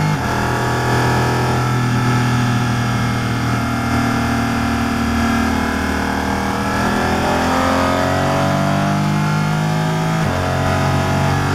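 Porsche Cayman GT4 RS Clubsport's flat-six racing engine heard from inside the cockpit, held in fifth gear. The revs fall away over the first few seconds, then climb steadily again under power.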